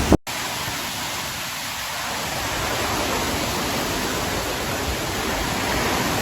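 Steady, even hiss of cyclone rain and wind, after a brief silence just after the start where the footage cuts.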